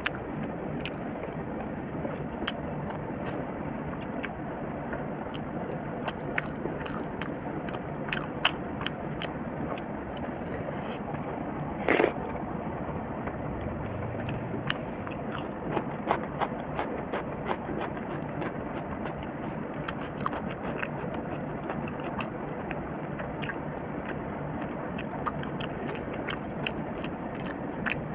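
Close-miked eating by hand: chewing and many short wet mouth clicks, with fingers squishing rice and curry on a steel plate, over a steady hiss. One louder smack comes about twelve seconds in.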